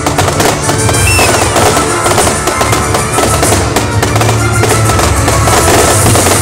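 Loud music with a heavy bass beat, with fireworks crackling and bursting over it throughout.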